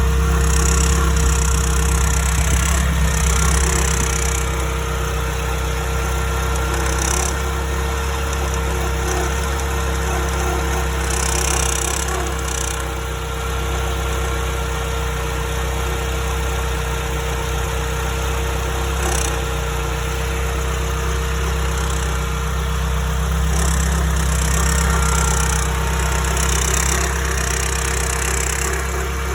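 Porsche 924 Turbo (931) turbocharged four-cylinder idling steadily, with a rattle that switches on and off in spells of a second to several seconds. The owner traces the rattle to the turbocharger or blow-off valve housing.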